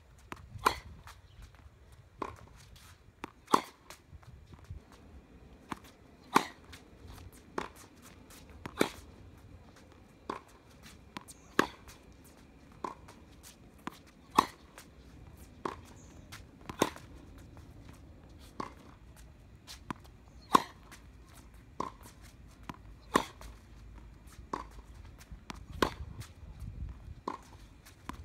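Tennis rally on a hard court: a racket hitting the ball with sharp pops, the loudest about every two and a half to three seconds. Quieter ball bounces and strikes fall between them.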